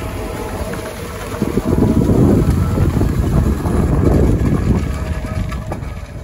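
Tractor engine running as it pulls an onion seed drill, with wind buffeting the microphone in gusts.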